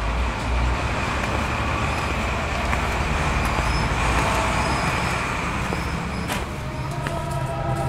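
City street traffic: a steady rumble of passing cars and engines, with a couple of sharp clicks, one of them about six seconds in.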